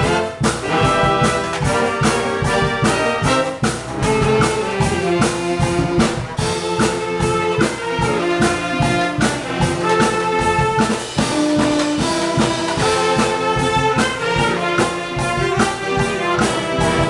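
A wind band playing live: brass such as trumpets and trombones carrying the tune over a steady beat.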